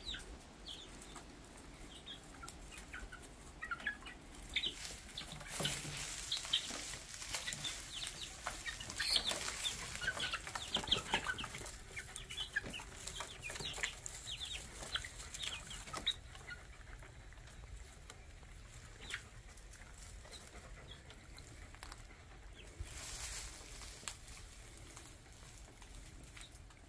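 A flock of about twenty young chicks peeping and chirping in straw bedding: many short, high calls, busiest in the first half. Two brief rushes of noise stand out, one near the middle and one near the end.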